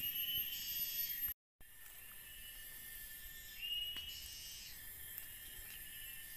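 Chorus of forest insects: high, steady buzzing tones, with a rising call a few seconds in that settles into a held tone. The sound drops out completely for a moment about a second and a half in.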